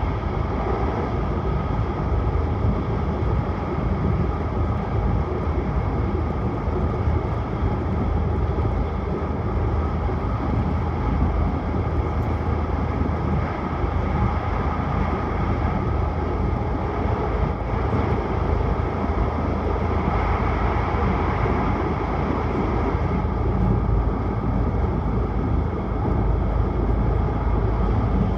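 Steady running noise of a Tohoku Shinkansen Hayabusa bullet train under way: an even rumble with hiss, unchanging throughout.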